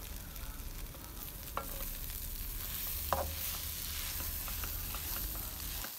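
Shredded chicken floss being stir-fried dry in a nonstick wok: a steady sizzle with a spatula stirring and scraping through it, and a couple of short clicks of the spatula against the pan.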